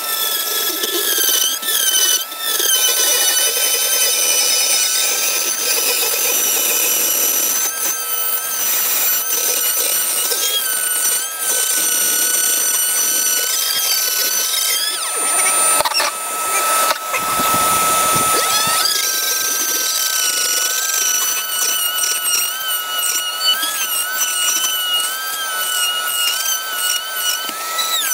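Dremel rotary tool cutting a speaker hole in a fiberglass boat panel: a high whine that wavers and dips in pitch as the bit bites, with a shop vac running alongside. About two-thirds through, the whine drops out under a brief harsher noise, then climbs back up.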